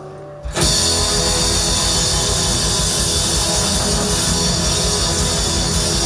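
Live rock band playing a loud, heavy instrumental passage with electric guitar and drum kit, crashing in suddenly about half a second in.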